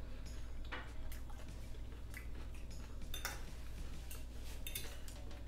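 A metal fork scraping and clicking against a plate as a taco is cut: a handful of short, separate scrapes and clicks over a steady low hum.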